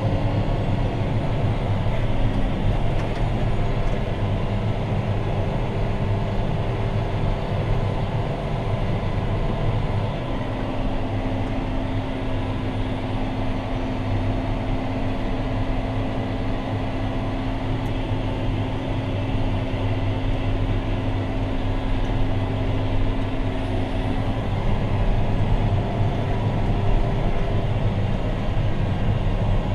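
John Deere 6215R tractor's six-cylinder diesel engine running steadily under load while pulling a plough, heard from inside the cab. A whining tone in the drone shifts pitch slightly about ten seconds in and again near the end.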